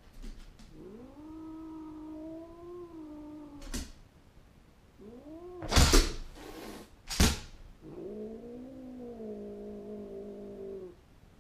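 A dog howling while left home alone, the distress of separation. There are two long, drawn-out howls, the first starting about a second in and the second near the end, with a short rising-and-falling cry and two loud sharp noises between them.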